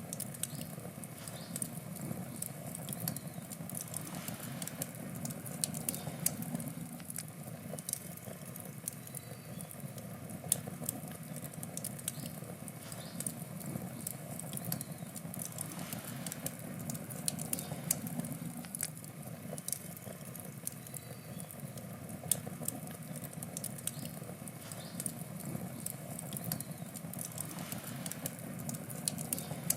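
Wood campfire burning: a steady low rush of flame with frequent irregular sharp crackles and pops from the burning wood.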